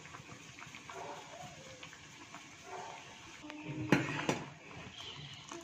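Steel ladle stirring thick soup in an aluminium pot, clinking sharply against the pot twice about four seconds in.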